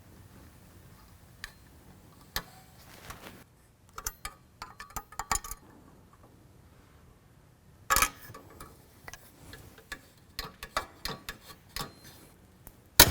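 Short runs of sharp clicks and clinks from hand tools at work, as the bolts holding a billet aluminum door handle to its mounting flange are tightened.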